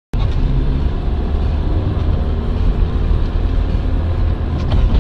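Car driving on a city street, heard from inside through a dash cam: a loud, steady low rumble of engine and road noise that cuts in suddenly at the start.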